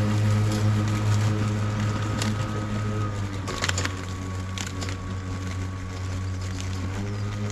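STIHL RMA 443 C cordless battery lawn mower running while cutting grass: a steady low hum of the spinning blade with an electric motor whine above it, the whine sagging a little in pitch about halfway through and picking up again near the end. It grows gradually fainter as the mower moves off, with a few sharp clicks of debris struck by the blade.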